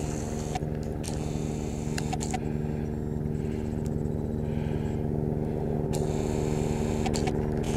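An engine running steadily, a low, even droning hum with no change in speed, with a few short stretches of high hiss over it.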